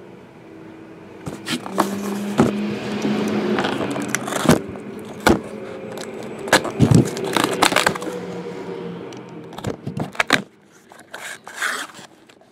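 Packing tape on a cardboard case being slit with a blade: a rasping scrape and tear with sharp knocks of the box and blade, stopping about ten seconds in. Lighter cardboard rustles follow as the flaps are folded open.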